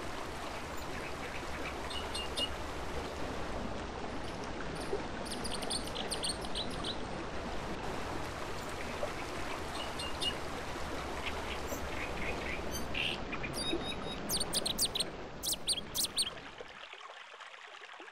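Steady rush of flowing shallow water, with short bird chirps scattered over it and more of them bunched near the end. The water sound drops away about a second before the end.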